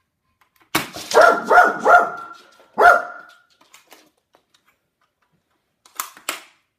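Dog barking excitedly: a quick run of about four barks starting about a second in, then one more. Near the end come two short, sharp clicks.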